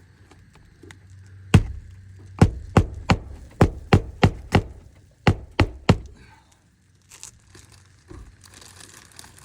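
A hammer driving roofing nails through asphalt shingles into the roof deck: about eleven sharp strikes in quick runs, re-nailing shingles that had been lifted to no more than 45 degrees. Some faint rustling of shingles follows near the end.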